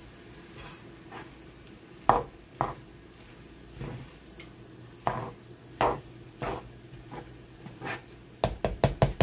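Spatula scraping and knocking against a pan while mixing soy sauce into fried rice, over a faint sizzle. Near the end the strokes quicken into a run of knocks, several a second.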